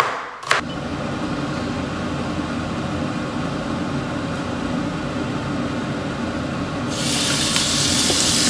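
A knife chops celery on a cutting board twice at the start. A steady mechanical hum follows. About seven seconds in, raw beef cubes tipped into a hot oiled frying pan set off a loud sizzle.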